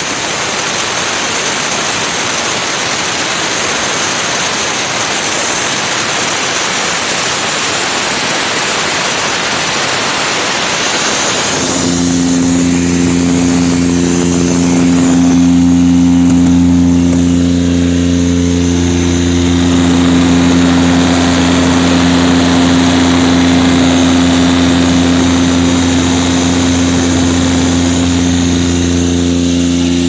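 Airman PDS90S diesel screw air compressor: a loud rushing hiss of compressed air blowing out of its outlet, which about twelve seconds in gives way to the steady hum of the diesel engine running.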